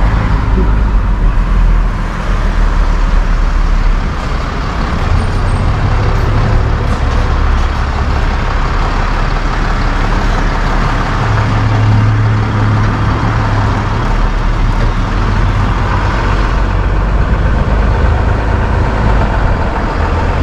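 A tow truck's engine running while the truck rolls along slowly, with steady low engine drone and road noise heard from inside the cab.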